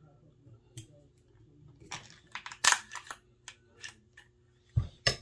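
Sharp metallic clicks and clatters of semi-automatic air rifle parts being handled and fitted during reassembly, with a cluster of louder clicks about halfway through and another near the end.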